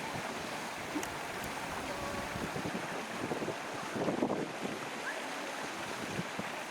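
Wind buffeting the microphone outdoors, a steady noisy rush with irregular low rumble, with faint voices in the background about four seconds in.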